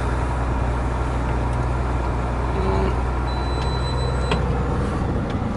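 Truck engine running steadily as it rolls slowly, heard from inside the cab, a low even rumble. A short thin high tone sounds for about a second around the middle.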